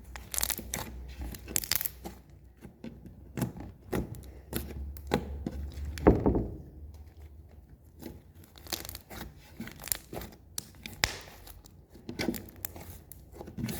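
Slime worked by hand to pop trapped air bubbles: irregular small pops, clicks and crackles, with one louder pop about six seconds in.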